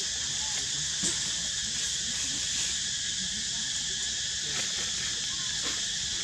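Steady, high-pitched drone of an insect chorus, with a few faint clicks about a second in and again near the end.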